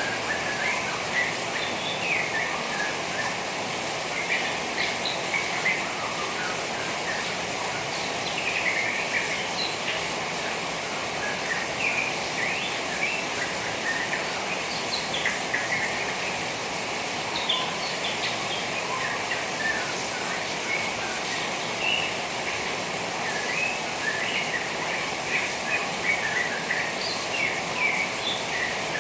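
Juvenile white-rumped shama chattering in short, rapid chirps over a steady hiss of trickling rainwater. Rain is the sound keepers use to set the bird chattering.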